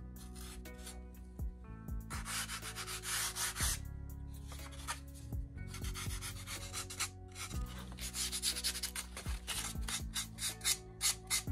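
Balsa wood being sanded by hand with a sanding block: runs of quick back-and-forth rubbing strokes, the busiest near the start and again near the end, over background music.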